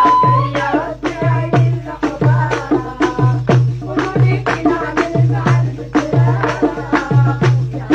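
Traditional Algerian folk music: clay goblet drums (derbouka) keep a steady rhythm of deep strokes and sharp slaps, with a melody running over them.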